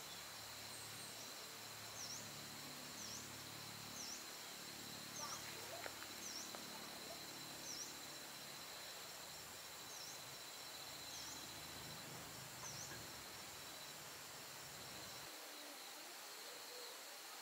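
Faint rural outdoor ambience: a steady high insect drone, with short high chirps repeating about once a second. Under it runs a low hum that cuts off suddenly near the end.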